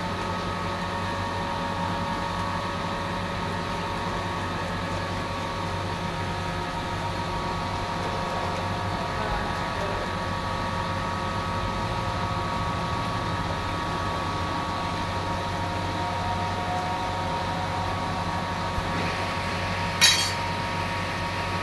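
Steady machine hum with several held tones, over a faint hiss of tap water running onto a tiled floor. One sharp clink near the end.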